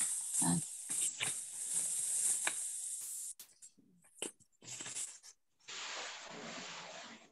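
Hiss from a video-call microphone with faint muffled voice sounds in the first few seconds. In the middle there are scattered short clicks of keyboard typing, and a steady hiss returns near the end.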